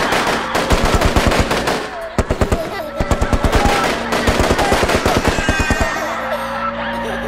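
Rapid automatic gunfire, several runs of about ten shots a second, over music. The firing stops about six seconds in, leaving a steady held tone.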